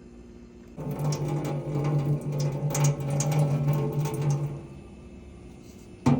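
Electrolux refrigerator's water dispenser running: a steady electric valve hum with rattling for about four seconds, then a sharp click near the end.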